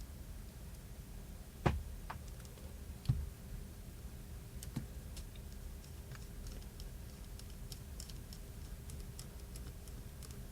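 Small clicks and light ticks of a precision screwdriver working at the tiny screws of an iPhone 4S: a few sharper clicks in the first few seconds, then scattered faint ticking, over a low steady hum.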